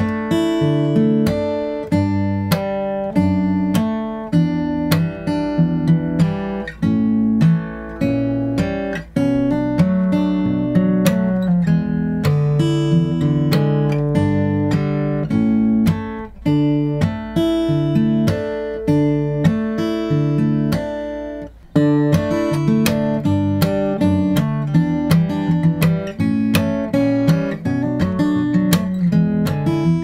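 Martin D-42 acoustic guitar fingerpicked slowly: thumb bass notes and plucked higher strings alternate with percussive slaps on the strings in a steady rhythm. The playing breaks off briefly about two-thirds of the way through, then resumes.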